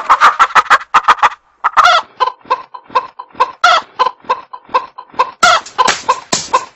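A hen clucking in a fast, even series of short clucks, with a brief pause about a second and a half in.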